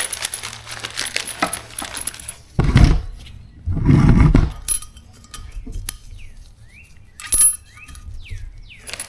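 Thin steel valve spring locators clinking like coins as they are handled and dropped onto the valve spring seats of an LS cylinder head. Two dull thumps come a few seconds in, followed by scattered sharp metal clicks, one of them ringing.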